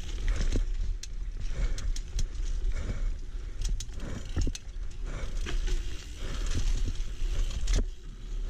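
Single-speed mountain bike being ridden over dirt singletrack: tyres on the trail with a steady low rumble, and frequent sharp knocks and rattles from the bike over bumps.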